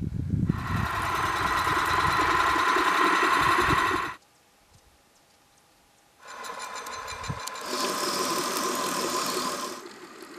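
A small motor running with a steady whine. It cuts off abruptly about four seconds in, leaving near silence for about two seconds, then a similar motor sound starts again with rapid ticking and fades near the end.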